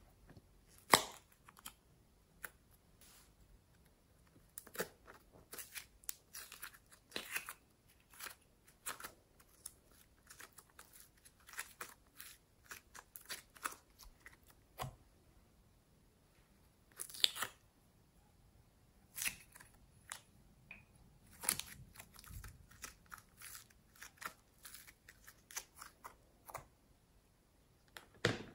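Small plastic slime containers being handled and their lids clicked open, with sticky crackling as slime is pulled out and laid into a glass bowl. Scattered sharp clicks and short crackles with quiet gaps between; the loudest clicks come about a second in and again around the middle.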